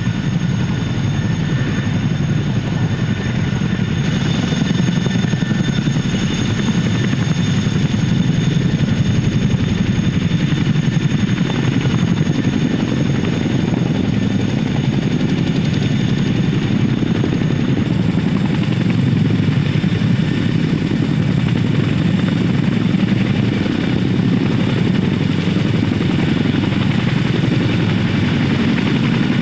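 Several Boeing CH-47 Chinook tandem-rotor helicopters running at close range as they lift off and hover with slung loads. Heavy steady rotor noise carries a steady high whine from the turbine engines, which shifts slightly in pitch about two-thirds of the way through.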